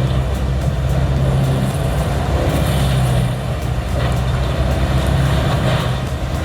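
Diamond Z 1463B wood grinder running steadily under load, its engine drone mixed with the noise of its hammers grinding wood into mulch.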